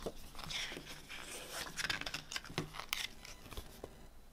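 Pages of a CD lyric booklet being turned by hand: paper rustling and crackling with small sharp clicks. It dies down near the end.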